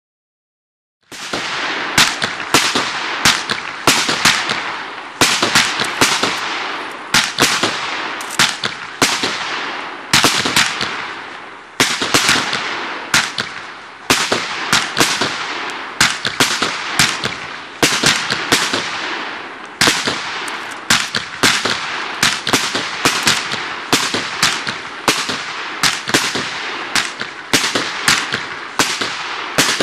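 Weco 25-shot firework cake firing in rapid succession, starting about a second in. Sharp bangs from launches and bursts come roughly two a second over a steady hiss from the gold comets and brocade bouquets.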